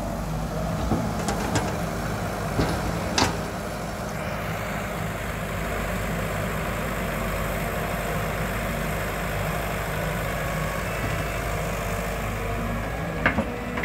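Caterpillar E120B hydraulic excavator's diesel engine running steadily as the machine works, with a few sharp clanks about one and a half and three seconds in and again near the end.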